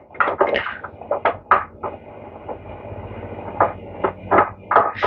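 Irregular knocks and clicks of metal small-engine starter parts being handled and worked by hand. A faint steady high tone runs beneath them for a couple of seconds in the middle.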